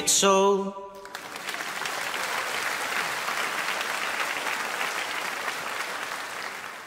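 The last sung note and guitar chord stop within the first second, then an audience applauds steadily, tapering off a little near the end.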